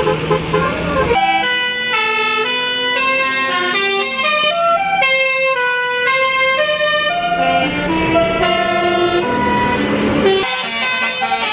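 Bus 'telolet basuri' musical horn playing a tune of quick stepped notes for about nine seconds. Bus engine and road noise are heard at the start and again near the end.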